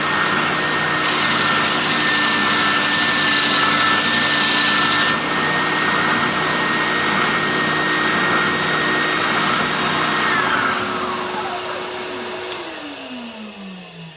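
Triton 450W oscillating spindle and belt sander running with a steady motor hum. For about four seconds near the start a harsher sanding hiss joins in as a workpiece is pressed to the abrasive. A few seconds before the end the machine is switched off and its whine falls away as the motor winds down.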